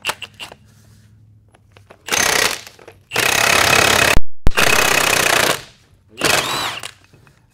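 Milwaukee cordless impact wrench hammering in four bursts, from about half a second to just over a second each, on a nut at the output flange of an NP241 DLD transfer case; a few short clicks come just before. Hammering this hard is the sign of a stout, high-torque gun.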